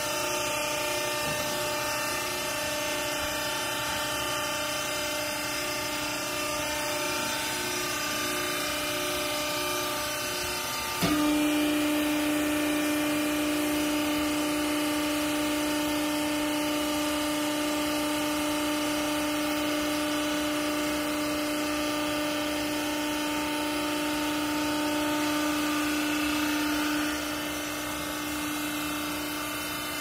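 Hydraulic power unit of a vertical used-clothing baler running with a steady machine hum. About eleven seconds in, a click and a sudden step up into a louder, steady drone as the pump goes under load working the press. The drone drops back near the end.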